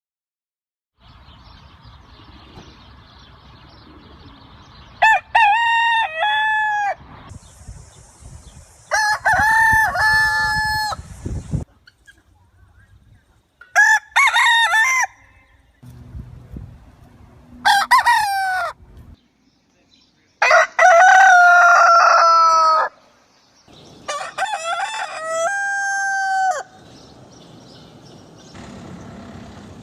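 Roosters crowing one after another: about seven separate cock-a-doodle-doos, each one to two and a half seconds long, in a compilation of different birds.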